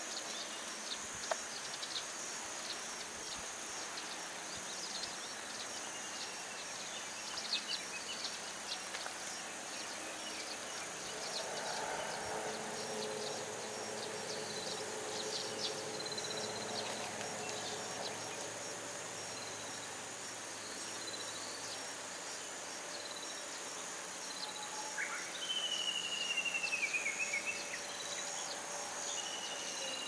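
Summer field ambience: insects keep up a steady high-pitched drone, with scattered short bird chirps and whistles over it. A faint hum comes and goes midway. About 25 seconds in, a louder bird call runs down in quick steps.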